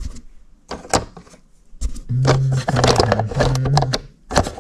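Hard plastic clicks and knocks as yellow egg trays are pushed and snapped into place in a mini automatic incubator, about a second in, near two seconds and again near the end. In between, a man hums low and wordlessly for about two seconds.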